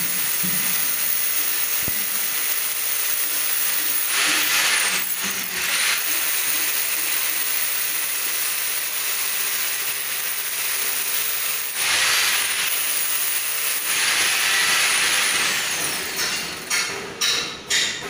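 A power tool running steadily with a harsh, hissing noise, a faint high whine dipping in pitch twice. It gives way to a few irregular knocks near the end.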